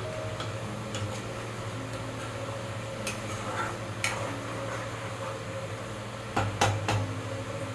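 Soft background music with a few sharp clinks of kitchen utensils against pots and dishes, a louder cluster of three clinks near the end.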